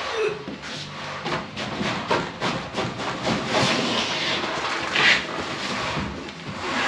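Heavy stone resin shower tray scraping and knocking on a concrete floor as it is lifted by a suction-cup lifter and stood on edge, with work-boot footsteps shuffling around it. A louder knock comes about five seconds in.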